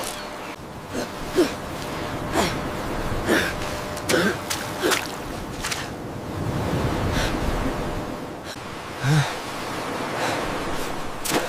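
A person's short, sharp gasps and breaths, about one a second, over a steady wash of surf.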